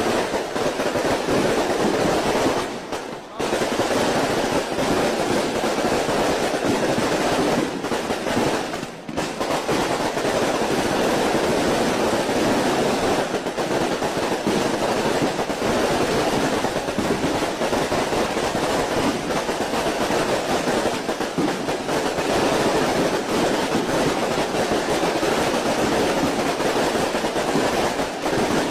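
A dense, unbroken barrage of firecrackers and fireworks crackling and popping in rapid succession, with brief lulls about three and nine seconds in.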